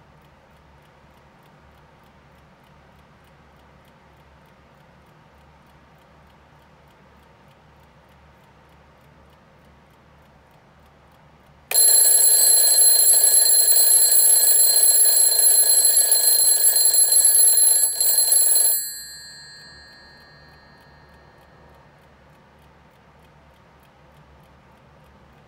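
Vintage Diamond wind-up alarm clock going off: its hammer beats between the two chrome bells in a loud continuous ring for about seven seconds. The ring starts about twelve seconds in and stops abruptly, then the bells' tone dies away over a couple of seconds.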